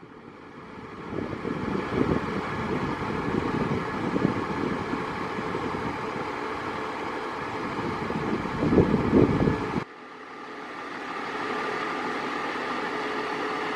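Motor vehicle engine running steadily. It fades in at the start, swells louder briefly near nine seconds, cuts off suddenly at about ten seconds, then fades back up and runs on steadily.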